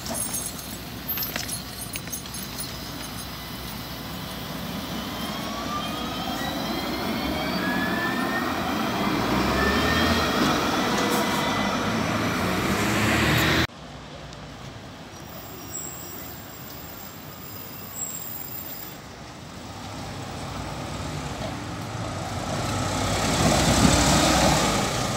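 Alstom Citadis 305 tram pulling away, its traction motors whining in several tones that rise in pitch as it speeds up and gets louder. This cuts off suddenly about 14 seconds in. A city bus then passes close by, loudest near the end.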